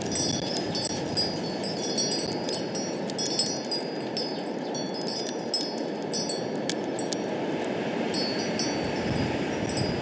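Metal wind chimes tinkling in a strong wind: short high ringing notes come and go over a steady rush of wind, with scattered sharp ticks.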